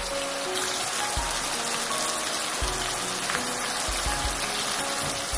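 Marinated chicken tikka pieces shallow-frying in oil in an open pan over a medium-high gas flame, a steady sizzle, with soft background music.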